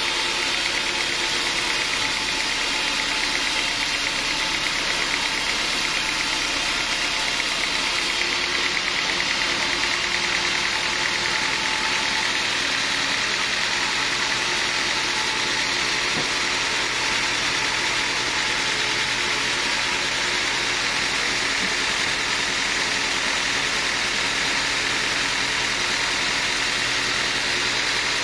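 Sawmill machinery running steadily: a constant engine drone with a strong high hiss, unchanging throughout.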